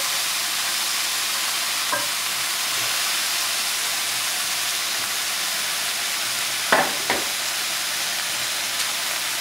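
Venison pieces sizzling in a hot cast-iron skillet, a steady high hiss, while sliced onions are stirred with a wooden spoon in a second pan. Two short knocks come about seven seconds in.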